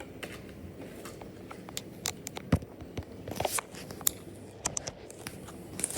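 Handmade fidget toy squeezed close to the microphone, giving off scattered small crackles and clicks, one sharper crack about two and a half seconds in.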